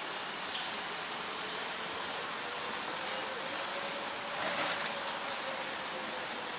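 Steady outdoor background hiss with a faint low hum, a brief louder rustle about four and a half seconds in, and a few faint high chirps.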